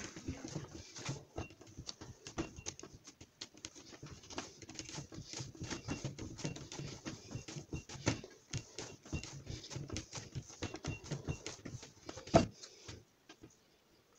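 Chebakia dough being kneaded by hand in a glazed terracotta bowl: irregular soft slaps and pats of the dough pressed against the clay. One louder thump comes near the end, then the kneading stops.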